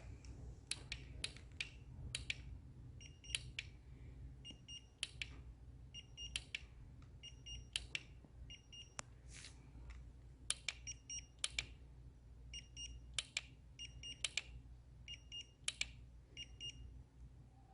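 Compressed firewood burning with irregular sharp crackles and pops over a steady low rumble. Short, high beeping tones come in pairs and little runs throughout.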